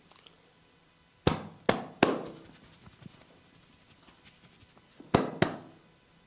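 Five sharp cracks from a barber's head and neck massage, three close together about a second in and two more near the end, each dying away quickly.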